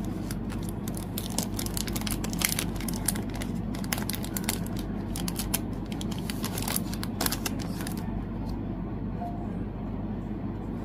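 Packaging being handled and unwrapped: quick crinkles, rustles and small clicks that thin out about eight seconds in.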